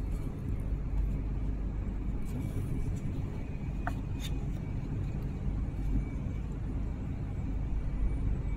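Steady low background rumble, with two faint short clicks about four seconds in as the plastic snap buttons and foam strip of a face shield are handled.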